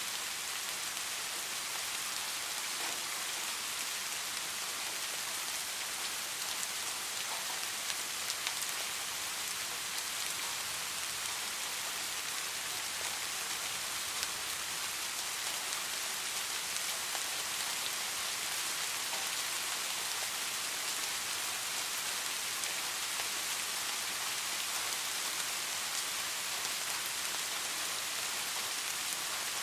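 Steady rain falling on surfaces, a continuous hiss with occasional individual drops ticking.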